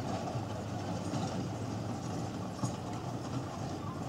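Pickup truck driving away over a dry dirt road: steady engine hum with road noise.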